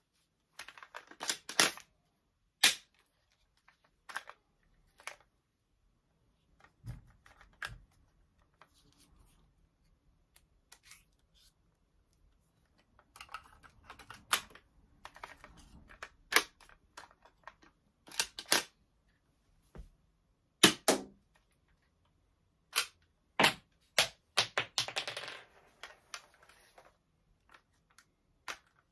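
Plastic clicks, snaps and clacks of a toy foam-dart blaster's mechanism being handled and worked, coming irregularly, with a few short stretches of quick rattling.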